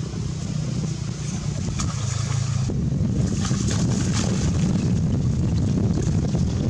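Wind buffeting the microphone: a steady, dense low rumble, with faint crackles over it in the middle.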